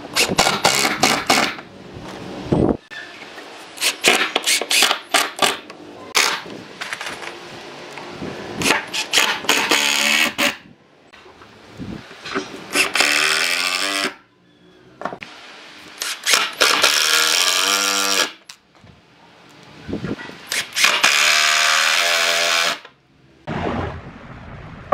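Cordless impact driver driving screws into a pine table frame, in about six runs of one to three seconds each. Each run has a hammering rattle over the motor's whine, and the pitch drops as the motor stops.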